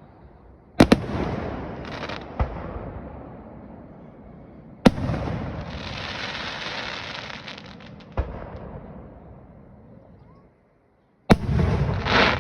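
Aerial fireworks shells bursting in the sky: five sharp bangs, each trailing off in a rumbling echo. A spell of crackling follows the loud bang about five seconds in.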